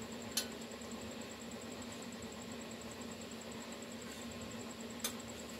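A steady, low mechanical hum, like a small motor running, with two short clicks, one about half a second in and one near the end.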